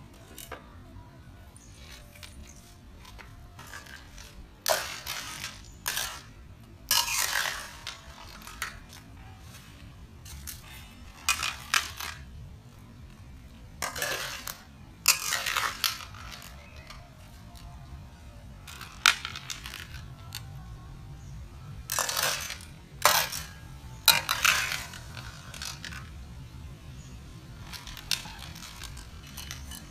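Shells and cookware clattering and clinking in irregular bursts, about a dozen over the span, as the shells are handled in a pot or bowl.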